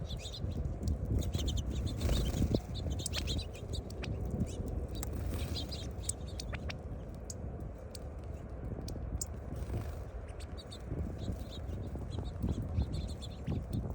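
Small birds chirping, many short high chirps overlapping, over a steady low rumble.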